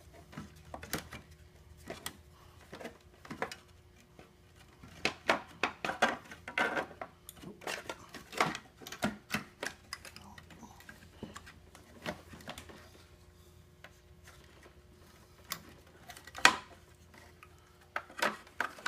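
Irregular clicks, taps and clinks of small hard objects being handled, with a sharper knock about two-thirds of the way through and a faint steady hum underneath.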